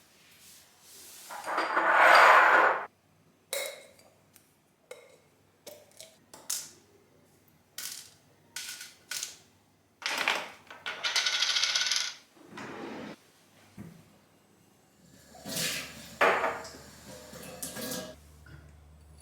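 Glass spice jars and their lids clinking and tapping as they are unpacked and set down: a run of light, sharp clinks, with a few longer rustling noises between them.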